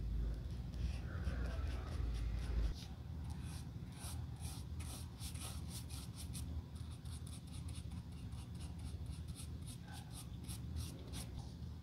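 A small flat brush stroking and dabbing filler or paint into the creased leather of a sneaker toe. It makes quick scratchy strokes, several a second, in a run that starts a few seconds in, after a low hum.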